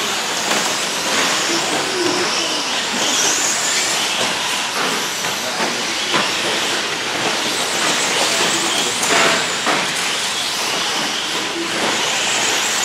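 Several 2WD electric short-course RC trucks with 13.5-turn brushless motors racing on a dirt track: a steady hiss of motors and tyres on the dirt, with occasional sharp clacks.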